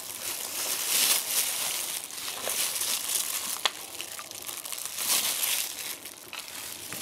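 Crinkling and rustling of plastic in irregular bursts, with a sharp click about three and a half seconds in.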